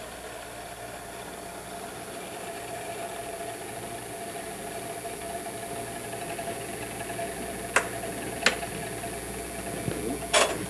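Steady background hum with a faint high whine, then three sharp clicks in the last three seconds as the controls on the rotating-field demonstration box are handled. The demonstration is dead because its fuse has blown.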